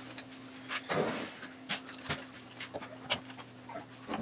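Light clicks and taps of small steel nuts being handled and started onto screws in a wooden assembly, with a soft rustle of hands about a second in and a faint steady hum underneath.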